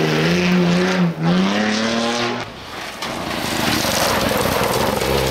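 Rally car engine at high revs on a gravel stage, the pitch dropping at a gear change about a second in and climbing again, then breaking off abruptly. A second rally car then comes up, its engine nearly buried in a rising rush of tyre and gravel noise.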